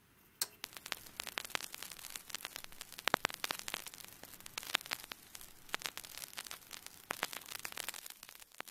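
Vinyl record crackle under a turntable stylus: a dense scatter of clicks and pops over a faint hiss, starting about half a second in, with no music.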